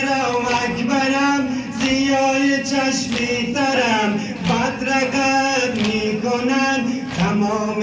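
Men chanting a Persian-language noha (a Shia mourning lament for Imam Hussain's family) together, with the slaps of chest-beating (matam) cutting through at intervals.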